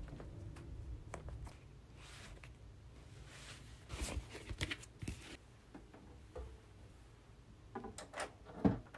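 Handling sounds of setting a vinyl record up on an Audio-Technica turntable: scattered rustles, scrapes and taps, then a few clicks near the end as the start button is pressed.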